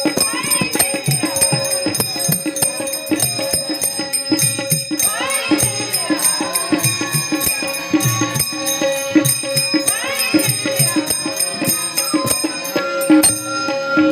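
Devotional Varkari bhajan music: small hand cymbals (taal) jingle in a fast, even rhythm over a steady drum beat and held harmonium-like tones.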